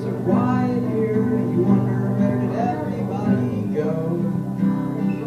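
Live acoustic guitar music, strummed chords carrying a melody.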